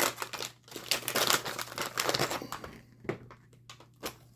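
Crinkling of plastic packaging being handled, in irregular bursts that die down after about two and a half seconds, with a single click about three seconds in.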